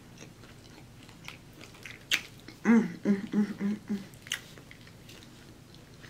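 Close-miked eating of fried shrimp and macaroni and cheese: chewing with wet mouth clicks and smacks. Past the middle come four short hummed 'mm' sounds.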